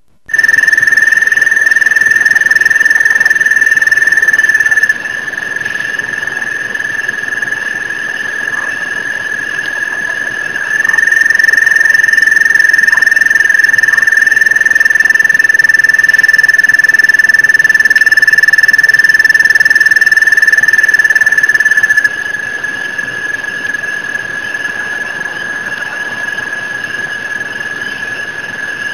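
Night chorus of crickets and tree frogs, recorded on a cell phone: one steady, high, unbroken trill with fainter trilling above it. The loudness drops abruptly about five seconds in, comes back around eleven seconds, and drops again a little past twenty seconds.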